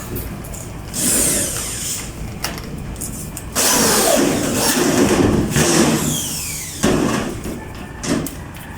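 Electrical tape being pulled off its roll and wrapped around wire splices: a short rasping pull, a longer one of about three seconds, and a brief one near the end.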